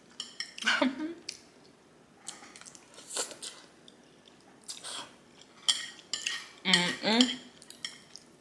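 Eating utensils clicking and clinking against a dish several times, with short ringing after each strike, between chewing and a few short mouth sounds of someone eating black bean noodles.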